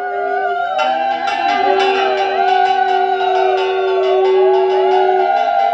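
Conch shells blown in long steady blasts that break off for breath and start again, over women's warbling ululation (ulu). From about a second in, a fast run of sharp strikes comes in, about four a second.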